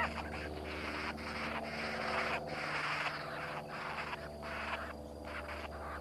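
A rasping, buzzing animal chorus that keeps breaking off and starting again, over a steady low hum.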